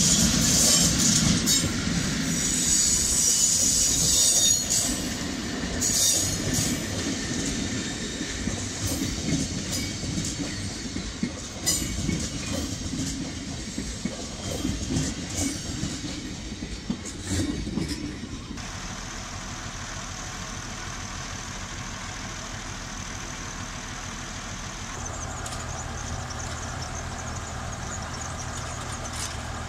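A mainline passenger train behind an electric locomotive rolls past, its wheels clicking and squealing on the rails and fading as the last coaches go by. About two-thirds of the way in the sound changes abruptly to a steady low hum, which fits the Mk48 narrow-gauge diesel locomotive idling.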